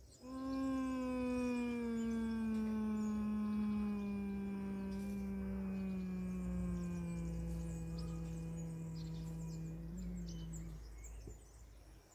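A human voice humming one long, steady hum on the exhale in bhramari pranayama (bee breath), imitating a buzzing bee. The pitch sinks slowly over about ten seconds and the hum stops shortly before the end.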